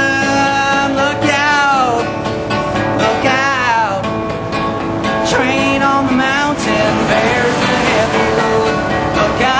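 Live acoustic guitar strumming with a man singing a country-blues song, the voice wavering and sliding between held notes.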